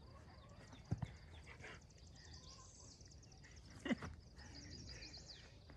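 Insects chirping steadily in the background, broken by a short low thump about a second in and a brief falling sound about four seconds in.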